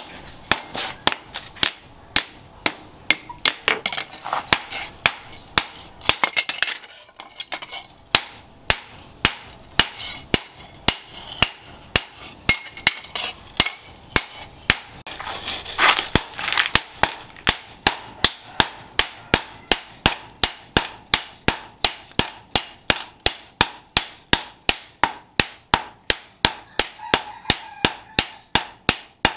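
Hammer blows forging a hot steel cleaver blade on a steel post anvil: a long run of sharp metallic clanks, about two a second, quickening to about three a second in the second half as a sledgehammer joins the hand hammer.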